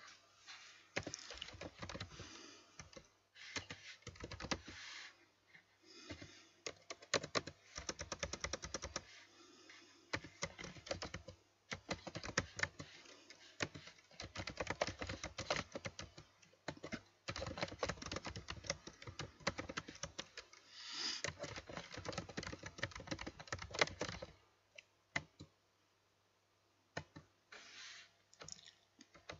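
Typing on a computer keyboard: runs of rapid keystrokes broken by short breaks, with a longer pause a few seconds before the end and then a few more keys.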